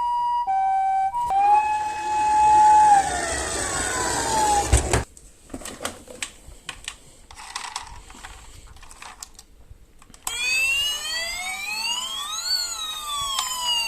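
Toy emergency-vehicle sirens: an alternating two-tone ambulance siren, then a steady tone that glides down and cuts off about five seconds in. A few seconds of small clicks and knocks follow. Then a siren wail starts, rises and begins to fall.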